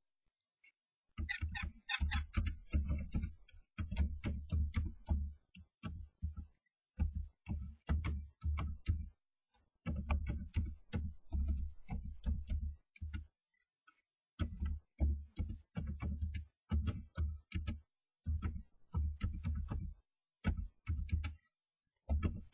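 Irregular bursts of scraping and tapping from starlings moving about inside their nest box: claws and bills working against the box and the nest material.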